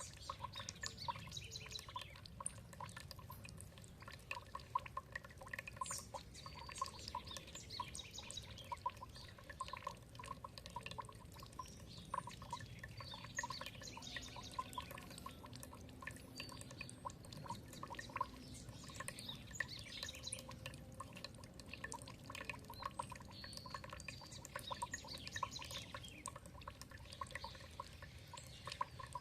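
Water trickling and pouring steadily, with many small birds chirping and calling throughout in quick, overlapping notes.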